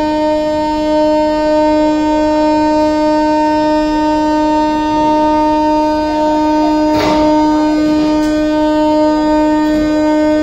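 Train horn held in one long, unbroken steady note as the passenger coaches roll by, with a sharp knock from the wheels about seven seconds in.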